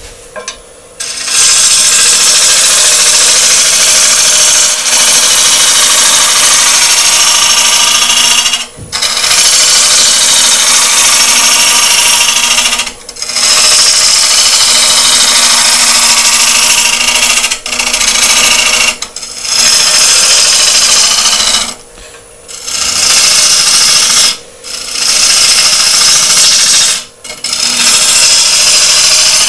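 Gouge cutting a spinning sycamore bowl blank on a wood lathe: a loud steady hiss of shavings coming off in long passes, broken about seven times by short pauses as the tool comes off the wood, with the lathe motor humming underneath. The cut runs into a silica seam in the sycamore, which blunts the gouge's edge.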